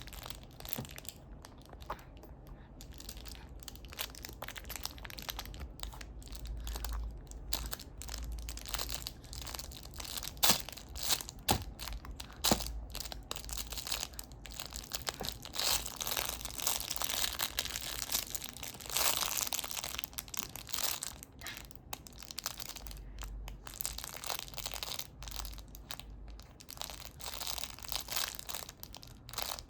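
A baby gumming and munching a teething biscuit: irregular crunching and crackling with scattered sharper clicks, busiest about two-thirds of the way in.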